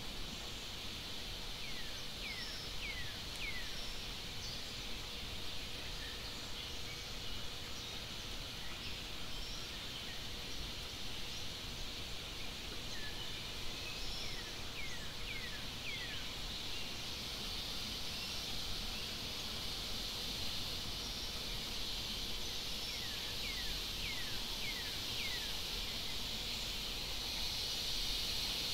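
Forest ambience: a steady high insect drone that grows louder near the end, with three groups of three or four short, quickly falling whistled calls.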